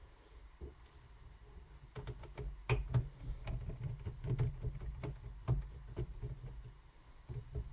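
Screwdriver working small screws out of a laptop's plastic bottom case: irregular clicks and scrapes of the bit and the handled case, starting about two seconds in.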